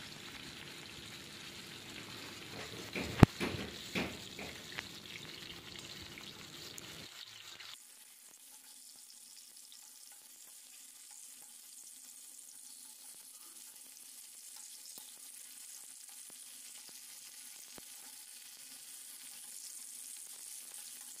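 Bitter gourd pieces frying in hot oil in a metal kadhai, sizzling. A spoon clinks against the pan a few times in the first five seconds, the sharpest knock about three seconds in; from about seven seconds in, only a quieter, steady sizzle remains.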